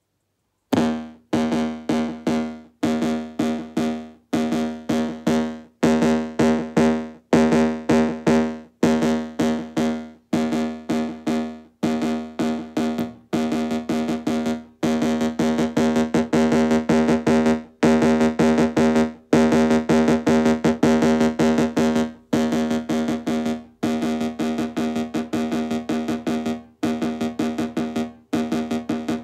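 Analog synthesizer repeating one plucky note in quick runs with short gaps between them, starting just under a second in. The volume of each note follows two envelopes blended by a breadboard mixer prototype: the fades are short and deep at first, turn longer and shallower as the mix knobs are turned, and grow short again near the end.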